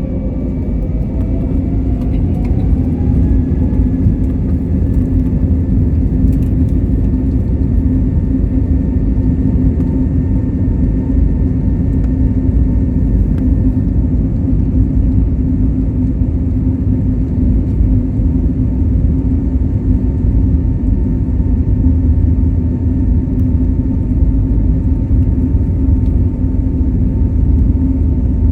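Airbus A320neo's jet engines spooling up, their whine rising in pitch over the first few seconds. They then run steadily at high thrust with a constant whine over a heavy, low rumble.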